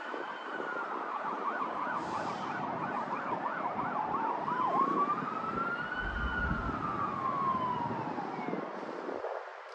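Emergency vehicle siren: a fast yelp warbling about three times a second from about one second in to about five seconds in, then switching to a slow wail that rises and falls once. A steady road-noise hiss runs underneath.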